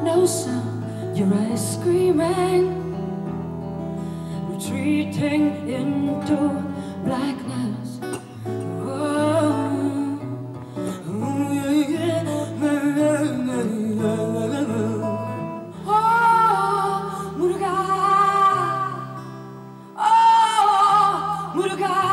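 A woman singing a melody live, accompanied by plucked acoustic guitar over steady held low notes. Her voice grows louder in the last couple of seconds.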